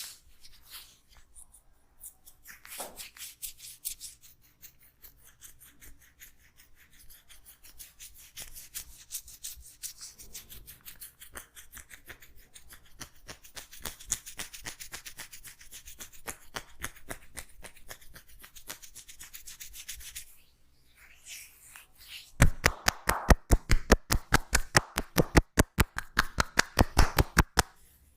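Hands rubbing quickly over an oiled scalp and hair in fast, even strokes. About twenty-two seconds in comes a run of loud, fast hand strikes on the head, several a second, lasting about five seconds: the tapping stage of an Indian head massage.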